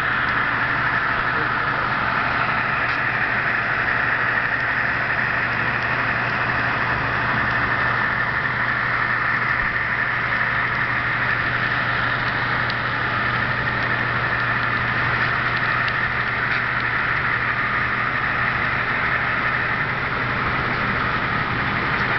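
HO scale CN Alco model diesel locomotives running under DCC control, giving a steady engine-like drone with a low hum underneath.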